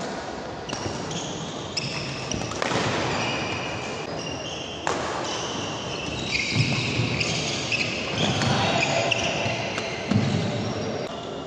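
Doubles badminton rally: racquets striking the shuttlecock several times, with sports shoes squeaking on the wooden court floor, in a large echoing sports hall.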